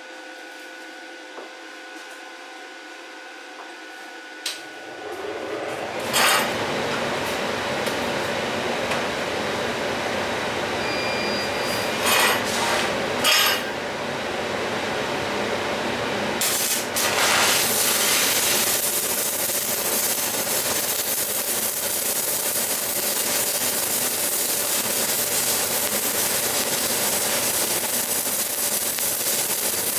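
Stick (MMA) arc welding with a 3.25 mm basic electrode at 100 amps on a Weldkar 1630 inverter. There are a few short flares as the arc is struck, about six, twelve and thirteen seconds in, before it holds from about seventeen seconds in with a steady crackling hiss.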